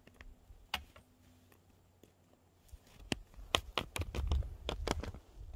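Ski boot tapping and knocking against a cross-country ski binding as it is stepped into, the tapping meant to clear packed snow from the sole so the binding will latch. One sharp tap comes under a second in, then a quick run of sharp clicks and knocks in the second half.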